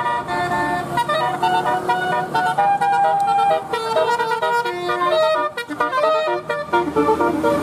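Bus telolet horn, a set of multi-tone air horns, playing a quick melody of stepped notes, with a run of short choppy notes near the end.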